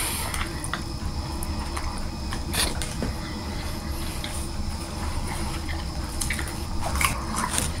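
Close-up chewing of a soft sub sandwich: wet smacking and squishing mouth sounds with scattered small clicks, over a steady low hum.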